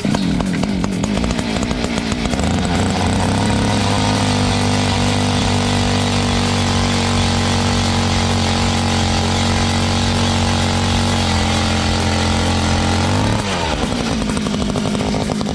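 Power ice auger running hard, drilling a hole through lake ice. Its pitch settles and holds steady about two seconds in, then drops near the end as it eases off.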